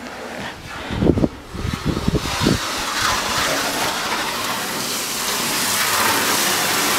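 Garden hose spray nozzle spraying water onto the bare steel bed of a pickup truck: a steady hiss of spray that builds from about two seconds in. Before it, a few low rumbling thumps.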